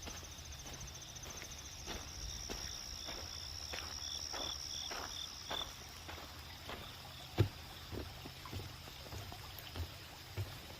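Footsteps on a wet park path at a walking pace, over a continuous high insect trill that fades out a little past halfway. One sharper tap sounds about two-thirds of the way through.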